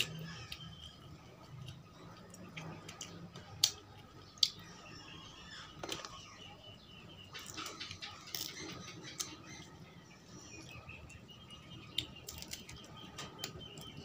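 Close eating sounds of fish eaten by hand: scattered lip smacks and sharp mouth clicks, two of them loud about four seconds in. Faint birds chirp in the background.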